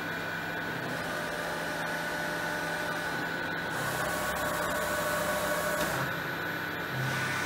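DECKEL FP 3 NC milling machine powered up and running, a steady hum with a constant high whine. From about 4 to 6 seconds a louder hiss with a higher whine joins in, then drops back.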